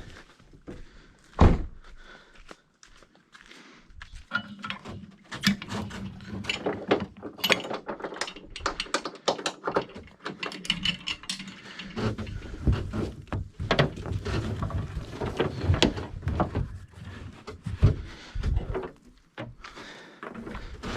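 A loud single thump about a second and a half in, then a long irregular run of knocks, clunks and rattles from gear being handled in an aluminium dinghy.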